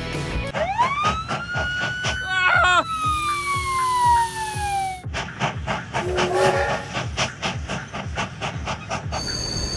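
Cartoon whistle sound effect: a whistle rises in pitch, wobbles briefly, then slides slowly down, over a fast, even clicking rhythm of about four beats a second.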